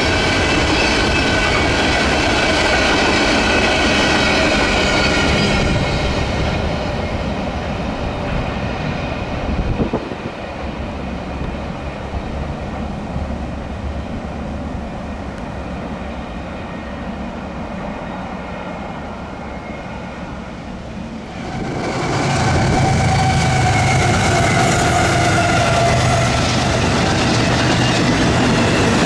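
Freight train rolling past on the rails, its wheels squealing in wavering high tones. The sound drops quieter for a long stretch in the middle and comes back suddenly louder, squealing again, about three-quarters of the way through.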